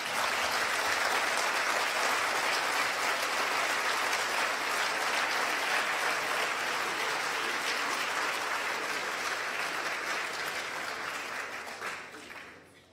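Audience applauding in a large hall: steady, dense clapping that starts at once and fades away over the last second or so.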